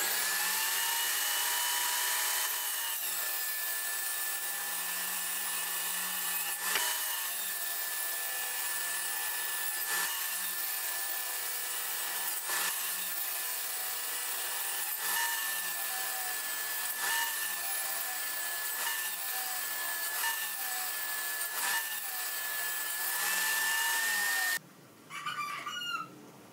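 Electric power saw running with a steady whine, its motor pitch sagging and recovering every two to three seconds as it is loaded by repeated cuts. It cuts off abruptly near the end, leaving quiet.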